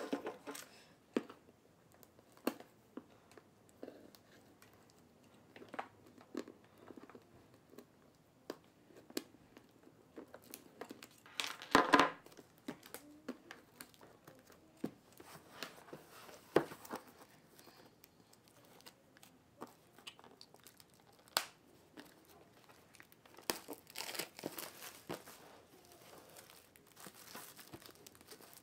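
Clear plastic shrink wrap being picked at, torn and peeled off a cardboard product box, with intermittent crinkling and small taps on the cardboard. The loudest burst comes a little before the middle, and a longer run of crinkling comes near the end.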